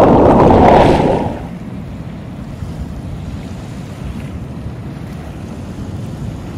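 Loud rush of water and wind on the microphone for about the first second, then it drops away to a steady low wind rumble on the microphone with small waves lapping on a beach.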